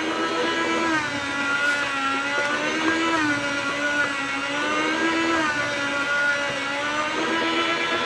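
Small electric meat slicer running as it slices smoked bacon, a loud motor whine whose pitch dips and recovers every couple of seconds.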